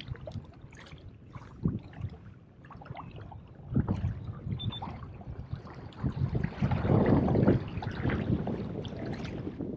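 Water splashing and lapping against the hull of a fishing kayak under way, with wind buffeting the microphone. The noise swells about four seconds in and again, louder, around seven seconds.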